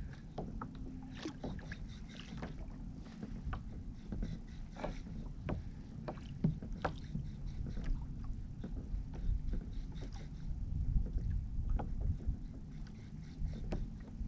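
Water lapping and slapping against a kayak hull on a light chop, with irregular small splashes and knocks over a steady low rumble of wind on the microphone.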